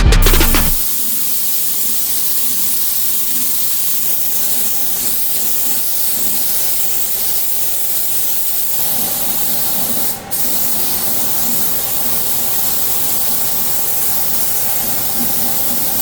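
Compressed-air spray hissing steadily. It breaks off briefly about ten seconds in, then resumes.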